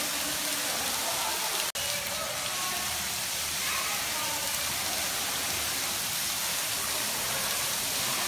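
Waterfall pouring and splashing as a steady, even rush of water, with a momentary dropout about two seconds in.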